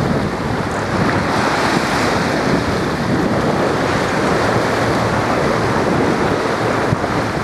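Steady loud rush of water along the hull and breaking wake of a small sailing sportsboat planing on a reach, mixed with wind buffeting the microphone.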